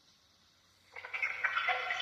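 About a second of near silence, then a spirit box switches on. It sweeps rapidly through radio stations, giving choppy, stuttering snatches of tones and broadcast sound.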